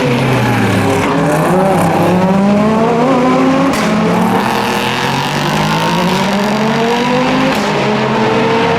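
European Le Mans Series race car engine accelerating hard, its pitch climbing steadily and dropping sharply at two upshifts, about four seconds apart.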